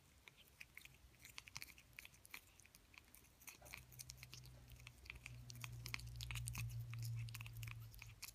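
A cat biting and chewing on a plastic toothbrush while its bristles scrape her teeth: a run of faint, irregular small clicks. A low steady hum comes in about halfway through and grows louder.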